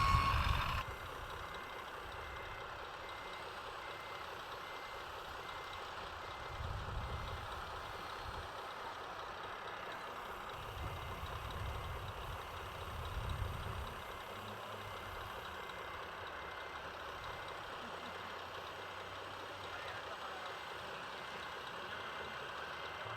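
Faint evenly repeating reversing beeps from a radio-controlled truck's sound module, over a steady low background with a few low rumbles of the model working.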